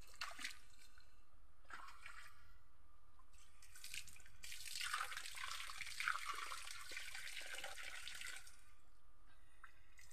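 Spring water splashing and trickling as a cup is rinsed and filled. It comes in a few short bursts and then runs for about four seconds from around the middle.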